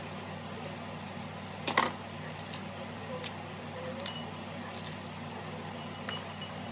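Sharp clicks and taps of a small knife and pomegranate against a ceramic plate as the fruit is scored and broken open by hand. The loudest is a double clack about two seconds in, with smaller taps after it, over a steady low hum.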